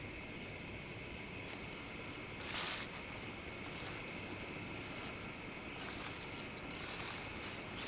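A few slow footsteps rustling through dry leaf litter, the loudest about two and a half seconds in, over a steady high-pitched chorus of night insects.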